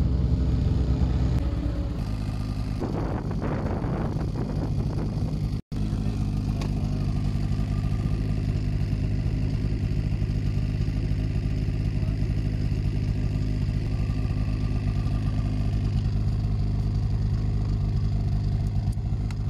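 Snowmobile engine idling steadily, with a short spell of clattering about three seconds in.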